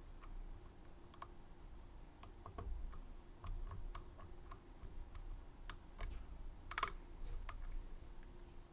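Small, irregular sharp clicks and taps of metal lock-picking tools working on a Medeco M3 lock, with a quick run of clicks about seven seconds in.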